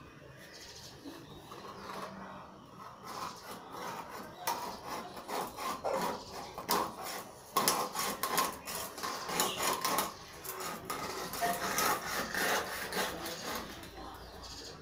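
A knife scraping the scales off a whole fish in quick, repeated rasping strokes. The strokes are faint at first and grow louder and denser from about four seconds in.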